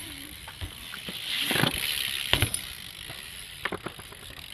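BMX bike being ridden: a rush of tyre noise swells about a second in and fades, with several sharp knocks of the bike hitting the ground.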